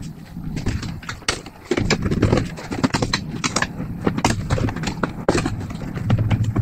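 Irregular clicks, clacks and knocks as a plastic engine cover and parts under a car's hood are handled and pried at, over a steady low hum.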